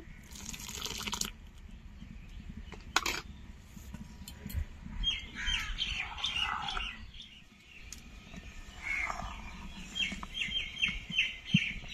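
Small birds chirping in quick repeated series. Near the start a short splashing pour of liquid into a pan, and about three seconds in a single clink.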